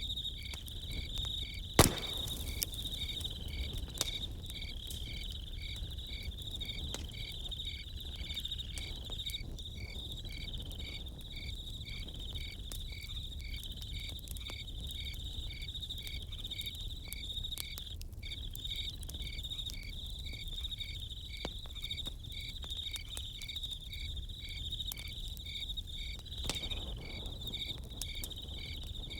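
Crickets chirping steadily, one trill continuous and another pulsing about twice a second, over a crackling campfire. The fire gives scattered sharp pops, the loudest about two seconds in.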